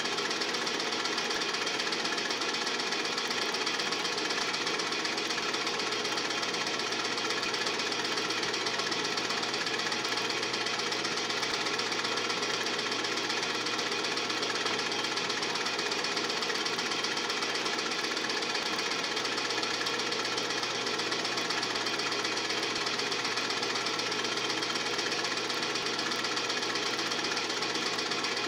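Film projector running, a steady mechanical clatter that does not change.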